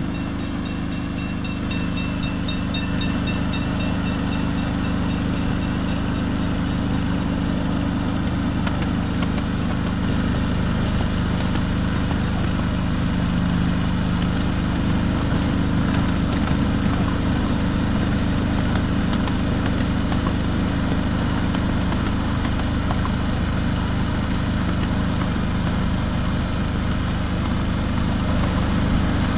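Engine of a 7¼-inch gauge ride-on diesel-outline locomotive running at a steady speed as it hauls the train along the track, a constant low drone that grows slightly louder.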